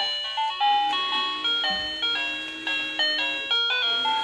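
Pink Magibx toy ATM piggy bank's small speaker playing a simple electronic tune of short stepped notes, the song it plays as a paper bill is fed into its slot.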